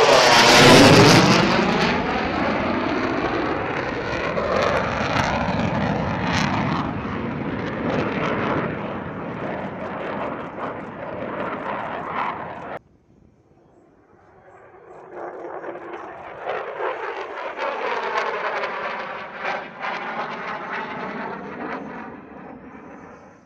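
F-16 fighter jet flying past overhead. Its jet noise is loudest at first and sweeps down in pitch, then cuts off suddenly about 13 seconds in. After a brief drop, a second pass swells up and fades out near the end.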